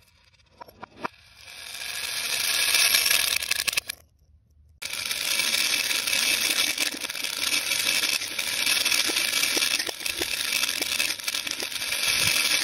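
Plastic pony beads clattering on a hard tabletop, played in reverse. First come a few light clicks, then a rattle that swells and breaks off sharply about four seconds in. After a short silence, a steady dense clatter of a stream of beads poured from a plastic bottle follows.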